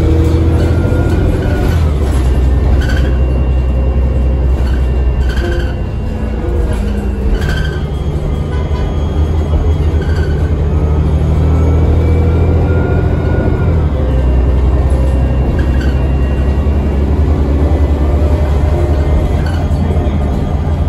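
Diesel engine of a New Flyer D60LFR articulated city bus, heard from inside the passenger cabin while the bus is under way: a loud, steady low rumble that steps up and down a few times as the engine works through the gears, with light cabin rattles.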